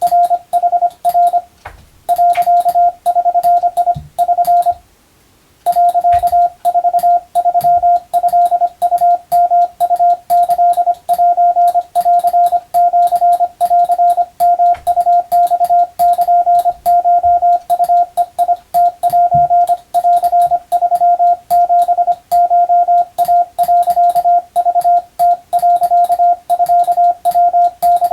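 Hand-keyed Morse code: a steady beep switched on and off into dots and dashes at a steady sending speed, with faint clicks at each keying, spelling Japanese kana (wabun) telegram practice text. Two short breaks in the keying, the longer one about five seconds in.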